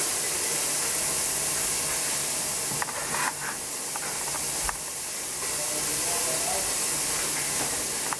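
Finely diced orange bell pepper sizzling in a hot pot, a steady hiss, with a few light clicks about three and five seconds in.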